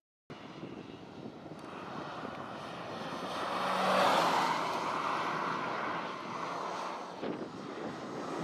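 The 2014 Renault Clio RS 200's turbocharged 1.6-litre four-cylinder engine as the car drives past at speed. The sound swells to its loudest about four seconds in as the car goes by, then fades as it pulls away.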